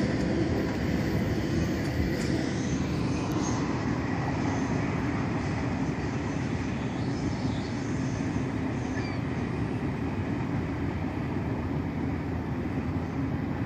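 Double-stack freight train's container cars running away down the line: a steady rolling rumble of wheels on rail that slowly grows quieter as the train recedes.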